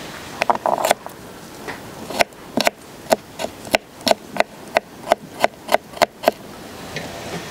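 A kitchen knife chopping garlic cloves on a wooden cutting board, with steady sharp knocks at about three a second that stop near the end.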